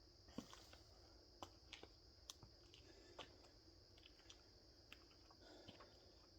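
Near silence: steady faint hiss with scattered faint, irregular clicks and taps.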